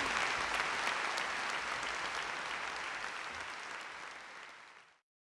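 Audience applauding, a dense steady clapping that fades out over the last two seconds and drops to silence near the end.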